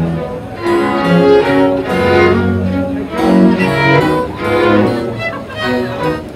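Bowed string music, violin and cello, playing a melody with several notes sounding together and changing every fraction of a second.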